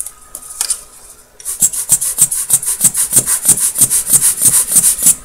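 Rubber bulb air blower squeezed rapidly over a watch movement, a quick run of about five or six puffs of air a second starting about a second and a half in, blowing dust off before the escape wheel goes in.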